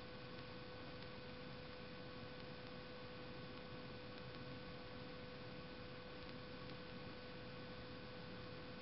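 MAPP gas torch with a Bernzomatic TS-8000 tip burning on a low flame, heating a clay crucible slowly: a faint, steady hiss with a steady hum over it.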